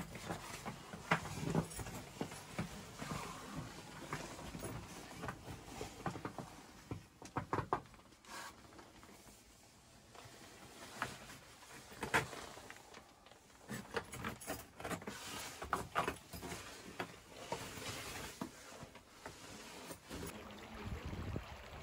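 Scattered clicks and scrapes of a person moving through a narrow ice cave, with a quieter stretch near the middle.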